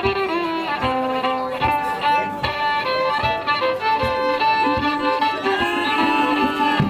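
Border Morris band playing a dance tune: a melody line with held and sliding notes over a steady drum beat, a little over one stroke a second.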